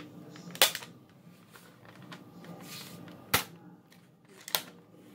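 Three sharp plastic clacks from a toy Nerf blaster being worked, spread out about a second, three and a half seconds and four and a half seconds in, the first the loudest.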